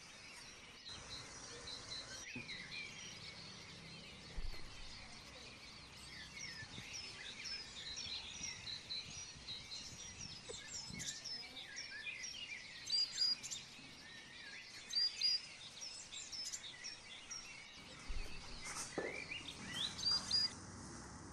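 Many birds chirping and calling at once, with short quick notes that overlap and a few louder calls standing out, over a steady outdoor background.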